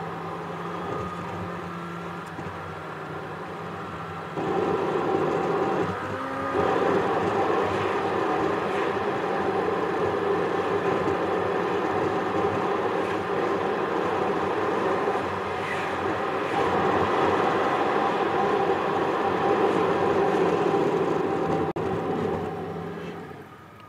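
Steady road and engine noise of a car heard from inside the cabin while driving. It gets louder about four seconds in and fades near the end as the car slows for a red light.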